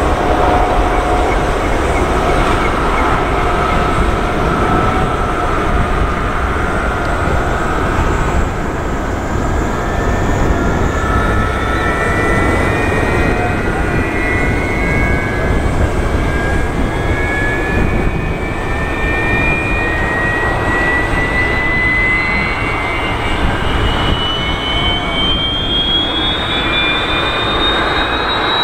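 Boeing 777-200ER's twin jet engines at take-off power through the take-off roll and lift-off: a loud, steady noise with a thin whine that rises slowly in pitch.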